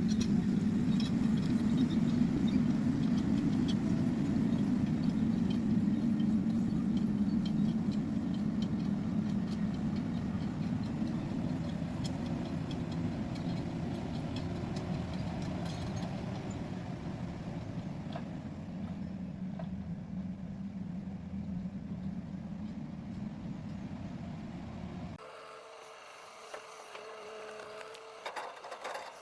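Komatsu forwarder's diesel engine running under load while climbing a slope with logs, a steady low rumble that slowly fades. About 25 seconds in it cuts off abruptly, leaving a much quieter steady hum with a few knocks near the end.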